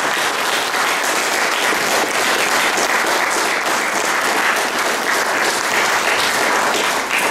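Audience applauding steadily, the clapping starting to die away at the very end.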